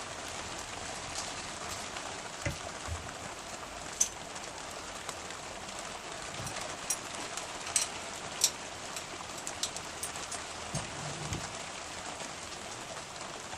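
Scattered light clicks and a few dull knocks as an air hose and blower gun are fitted to a compressor, over a steady hiss.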